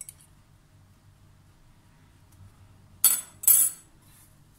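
Two short, loud clatters about half a second apart, some three seconds in: metal forks knocking against a porcelain bowl.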